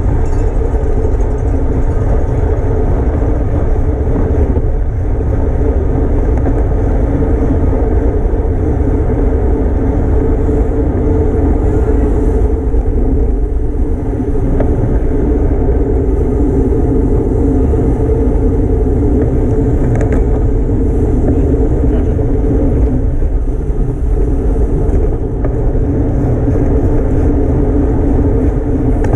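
Wind rushing over the camera microphone of a bicycle ridden at race speed in a criterium, a steady loud rumble with road and tyre noise underneath.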